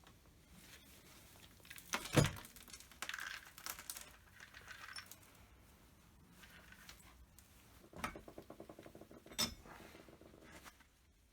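Hand tools and small metal parts of a STIHL 017 chainsaw clinking and knocking as it is worked on, with one heavy knock about two seconds in. A quick run of evenly spaced clicks follows near the end.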